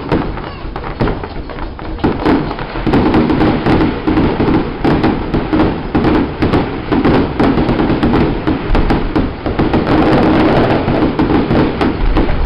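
Fireworks display: a loud, continuous barrage of aerial shells bursting, with many bangs and crackles in quick succession.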